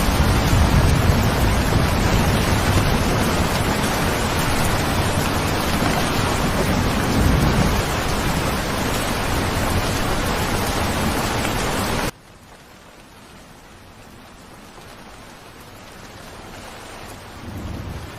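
Heavy, steady rain with a low rumble underneath. About two-thirds of the way through it cuts off abruptly to much quieter rain, which slowly grows louder, with a low swell near the end.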